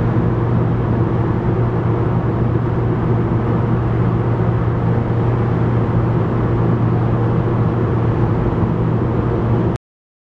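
Steady low mechanical drone with a constant-pitched hum, like a vehicle engine running, cut off abruptly near the end.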